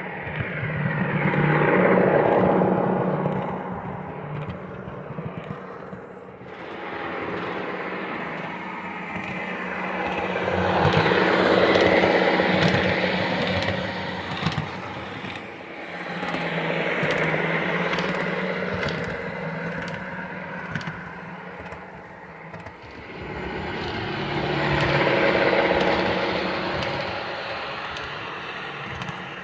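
Lionel O-gauge Union Pacific M-10000 streamliner model running on track, its motor hum and wheel clatter swelling and fading four times as it passes and moves away. Short clicks sound throughout.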